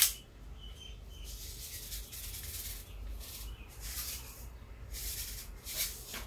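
A sharp click as the cap of a plastic salt shaker is handled, then salt rattling and hissing in the bottle as it is shaken in short bursts, about one a second.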